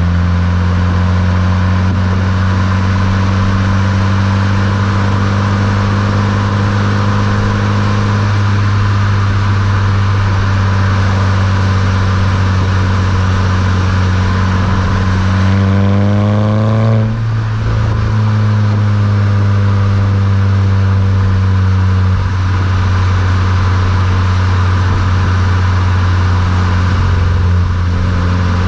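Volkswagen Mk6 GTI's turbocharged 2.0-litre four-cylinder engine running under way through a Beluga aftermarket exhaust, at a steady engine speed. About sixteen seconds in, the pitch climbs briefly, then falls at a gear change and settles steady again.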